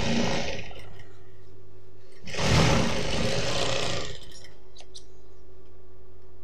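Industrial sewing machine stitching in two short runs, the first stopping about a second in and the second lasting nearly two seconds, with the motor humming steadily in between. A couple of small clicks near the end.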